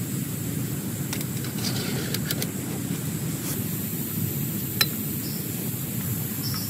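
Heavy rain falling on a tent, a steady noise, with a few sharp ticks scattered through it, the loudest just before five seconds in.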